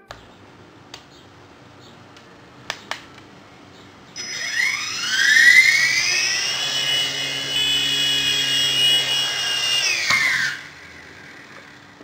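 Small electric rotor motors of an infrared remote-controlled toy helicopter spinning up with a high whine that rises in pitch about four seconds in, holds steady, then falls away and stops just after ten seconds. A couple of faint clicks come before it.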